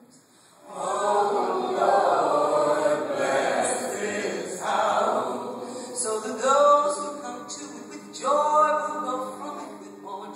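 A small church choir with a woman soloist singing a sacred song, the voices coming in together after a brief near-silent pause about a second in and holding long notes.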